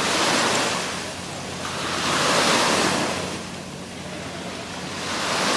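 Small sea waves washing in and out, a rushing noise that swells and fades about every two to three seconds.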